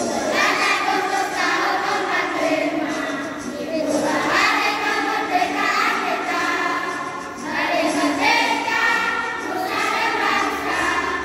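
Children's choir singing together in long phrases, with brief breaks between phrases about every three to four seconds.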